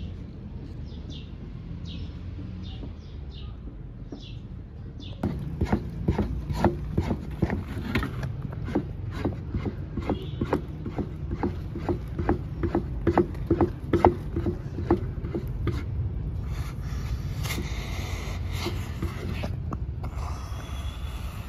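Birds chirp for the first few seconds. Then a wooden stick beats and stirs thick flour porridge (mull) in an aluminium pot, knocking about three times a second, and changes to a steadier scraping and squelching of the stiff mash near the end.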